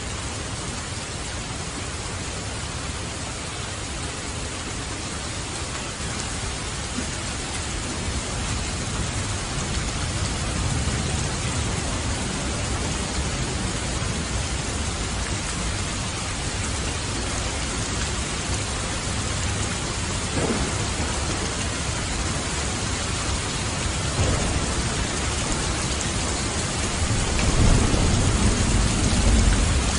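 Steady heavy rain with thunder rolling low underneath, swelling a few times and loudest near the end.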